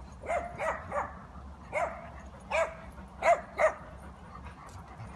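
Dog whining and yipping in excitement, waiting at a gate for a familiar person to arrive. About seven short, high calls come in an uneven series, each rising and then falling in pitch, several of them in quick pairs.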